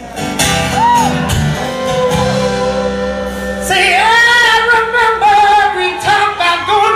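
Live acoustic song: a male singer with strummed acoustic guitar. Long, wavering sung notes come in louder about four seconds in.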